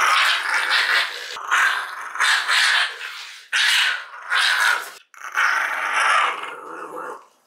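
Mameshiba (small Shiba Inu) snarling and growling in a string of about seven short, rough bursts, protesting as a toothbrush is pushed into its mouth.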